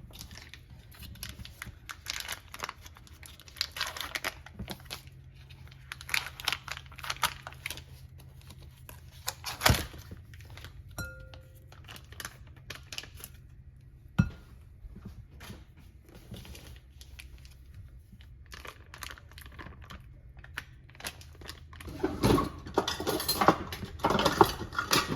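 Food packaging crinkling and rustling as ingredients are handled, with scattered small clicks and two sharp knocks, one about ten seconds in and one about fourteen seconds in.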